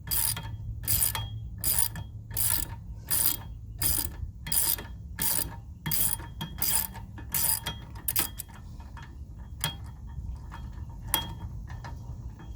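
Socket ratchet wrench clicking in steady back-and-forth strokes, about three every two seconds, as a long hub-assembly bolt is backed out. The strokes stop about eight seconds in, with a couple of single clicks after.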